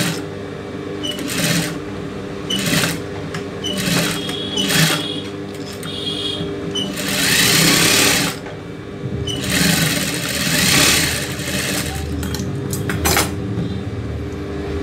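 Industrial sewing machine stitching in a string of short bursts, then two longer runs of a second or more just past the middle, with its motor humming steadily between the runs.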